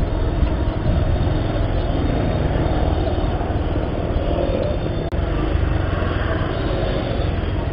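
Bajaj Pulsar 150 single-cylinder motorcycle engine running at low road speed in busy street traffic, steady throughout, with a brief break in the sound about five seconds in.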